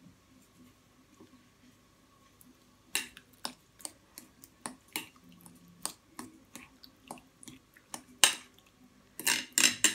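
Spoon clinking and scraping against a glass bowl while wet chopped tomato salad is stirred: irregular sharp taps that begin about three seconds in and bunch together near the end.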